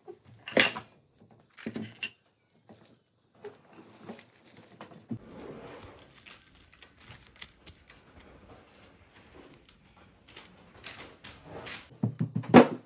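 Objects being handled on a work surface: a few sharp knocks and clatters near the start, a soft rustle in the middle, and a quick run of knocks near the end.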